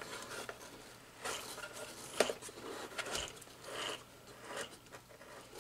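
Light clicks and knocks of hard plastic as the brush roll of a Bissell PowerGlide Pet upright vacuum, with a new, tight drive belt, is handled and set in the vacuum's base. A handful of separate small knocks, the sharpest about two seconds in.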